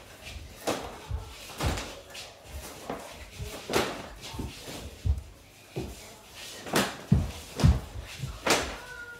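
Irregular thuds of feet on a floor, about one or two a second, as a person steps and lunges through swinging strokes.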